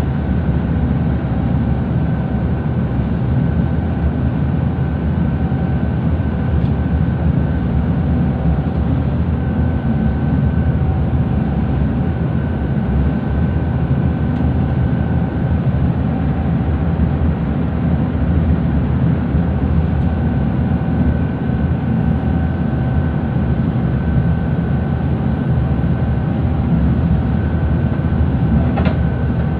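Twin Scania DI13 marine diesel engines of a harbour ferry running steadily at cruising speed, heard inside the passenger cabin as a loud, even low drone with a faint steady whine above it.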